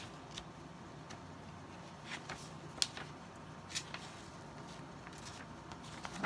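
Paper quilt-pattern booklet being handled and its pages turned: a few short crisp rustles, the sharpest about three seconds in, over a faint low room hum.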